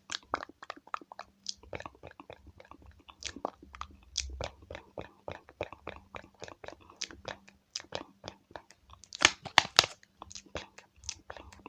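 Rapid, irregular crackling clicks of mascara being applied with the wand close to the microphone, with a louder cluster of clicks about nine seconds in. A faint steady hum runs underneath.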